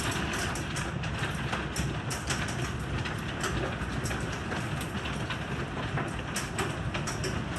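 Heavy thunderstorm rain pouring steadily, with frequent irregular sharp ticks of drops striking hard surfaces.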